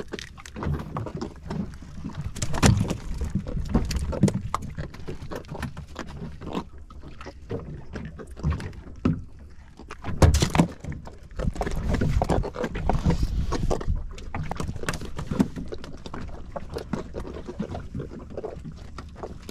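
Irregular knocks and slaps on a small boat, over a low rumble of wind and water against the hull.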